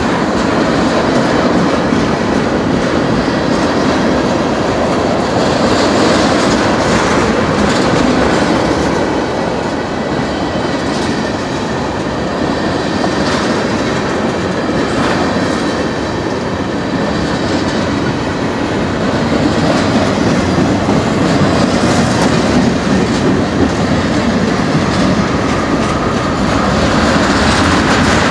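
Freight train cars rolling past at close range, a steady rumble with the wheels clacking over the rail joints.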